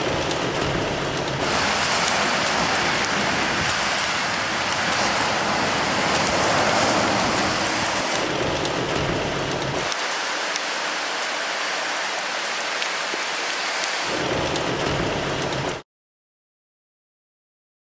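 Heavy rain falling steadily, a dense hiss of rain on surfaces that shifts slightly in tone at several cuts. It stops abruptly into dead silence about two seconds before the end.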